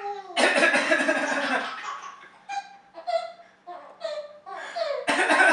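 Coughing mixed with laughter: a long rasping burst about half a second in, a few short high-pitched sounds, then another loud burst near the end.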